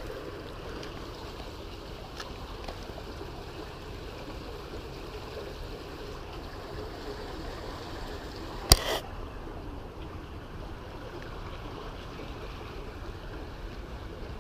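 Steady outdoor background hiss with a faint trickling, watery quality, broken by one sharp click about nine seconds in and a couple of fainter clicks earlier.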